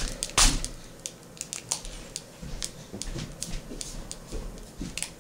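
Foil self-inflating balloon packet crinkling and ticking irregularly as the gas from its reaction swells it, with a louder crackle about half a second in.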